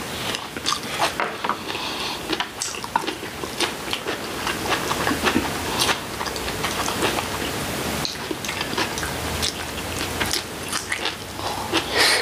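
People chewing vegetable side dishes close to the microphone: a run of wet, crisp crunching and mouth sounds, many short crunches one after another.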